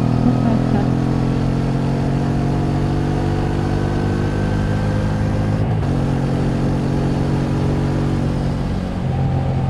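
Honda Transalp XL700V's 680 cc V-twin engine running under way, its pitch slowly rising as the bike picks up speed, with a break about six seconds in before it runs steady again, over a rush of wind and road noise.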